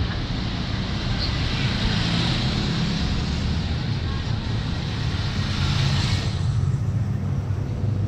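City street ambience: road traffic with a steady low rumble and a hiss that cuts off about six seconds in, with passersby talking.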